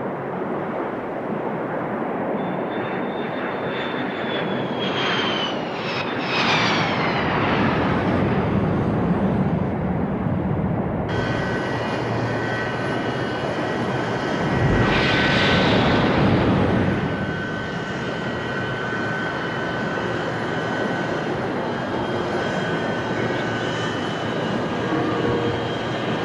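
F-14 Tomcat jet engines on an aircraft carrier's flight deck: steady jet noise with a high turbine whine, and a few falling whines about five seconds in. Around fifteen seconds in a loud rush of jet thrust swells and fades as a Tomcat is launched off the catapult.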